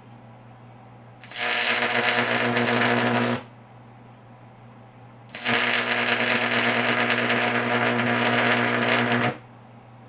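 High-voltage arc from a microwave oven transformer, drawn with a chicken-stick probe onto the top of the transformer: a loud, harsh buzzing crackle that runs about two seconds, stops, then runs again for about four seconds and cuts off. A low steady hum runs beneath it.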